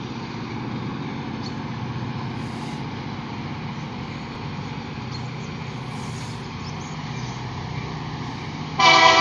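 EMD SD40-2 diesel locomotive with its 16-cylinder two-stroke engine running as a steady low hum while approaching. Near the end its air horn suddenly starts blowing a loud multi-note chord.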